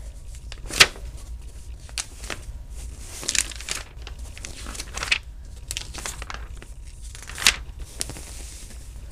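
Comic book pages being handled and turned, the paper rustling and crinkling in a series of short, sharp crackles. The loudest come about a second in and again near the end.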